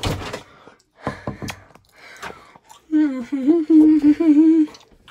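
A few knocks and rustles, then about three seconds in a child's voice moans a held, wavering 'oooh' for a second and a half.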